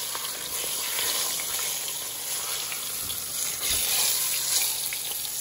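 Floured beef shank sizzling steadily as it browns in hot olive oil in an enamelled Dutch oven, lifted and turned with tongs.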